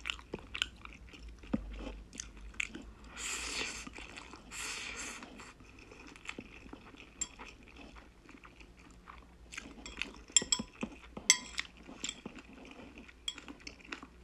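Close-miked eating of spicy jjajang Buldak noodles: chewing and slurping, with two longer noisy slurps about three and four and a half seconds in. A run of sharp clicks from the metal chopsticks on the plate comes in the second half.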